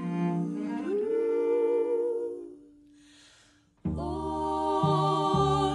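Music from a string quartet of violins, viola and cello with women's voices. A held chord fades away about two and a half seconds in. After about a second of near silence, the ensemble comes back in suddenly just before four seconds in, with the cello's low notes underneath.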